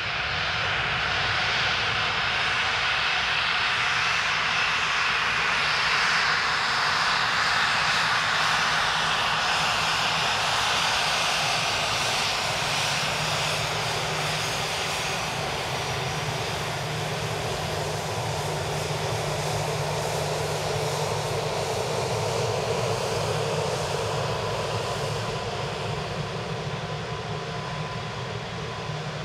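Gulfstream G650ER's twin Rolls-Royce BR725 turbofan engines running at low taxi thrust as the jet rolls past: a steady jet whine and rush that gets a little quieter near the end.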